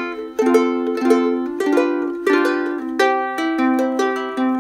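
Kiwaya ukulele played in a steady rhythm of plucked chords, a new chord about every half second, each ringing on. It is picked up by an iPhone 7 Plus's built-in microphone.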